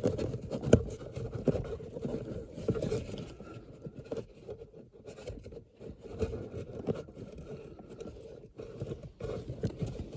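Cabin air filter being forced into its plastic housing: irregular scraping and rustling of the filter against the plastic, with a few knocks in the first second.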